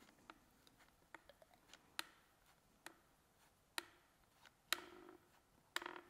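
Hand-operated cartridge dispenser gun clicking faintly as its trigger is squeezed stroke by stroke, about one click a second with a quick cluster near the end, pressing the first waste run of injection mortar out through the static mixer.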